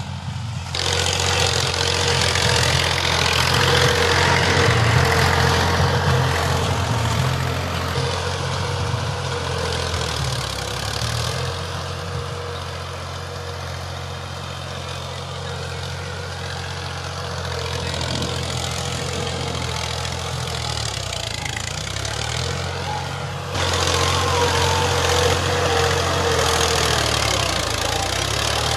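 Ghazi farm tractor's diesel engine running steadily under load while pulling a tillage implement through ploughed soil. It is louder for the first ten seconds or so, quieter through the middle, and steps up sharply again near the end.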